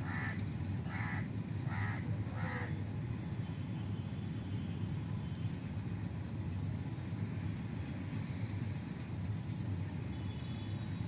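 Crow cawing four times in quick succession, over a steady low rumble.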